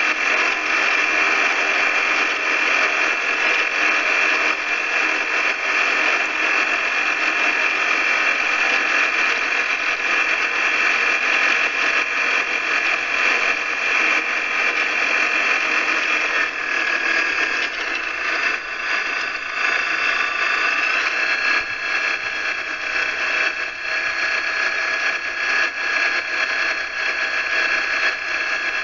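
Light aircraft in flight: the engine and propeller run steadily under a constant rush of wind. About two-thirds of the way through, the engine note dips and then settles at a different pitch.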